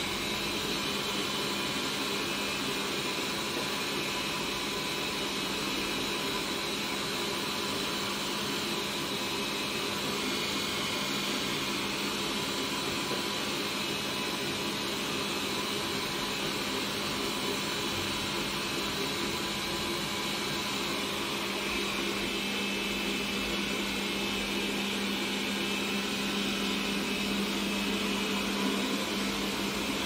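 Xiaomi Mi Robot Vacuum running steadily while cleaning. Its suction gives an even rush of air with a low hum and a higher whine on top.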